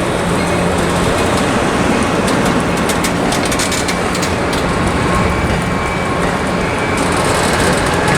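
Passenger train running past with its diesel locomotive shoving from the rear: a steady engine hum under the rumble of wheels on rail, with a run of sharp wheel clicks over rail joints in the middle.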